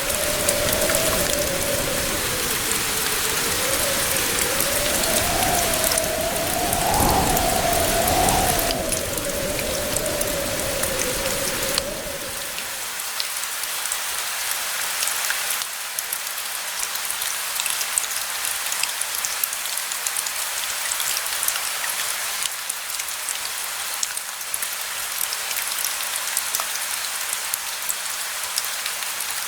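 Steady rain falling, an even hiss with many fine drop ticks. For the first twelve seconds or so a low rumble with a wavering tone above it runs underneath, then stops abruptly, leaving only the rain.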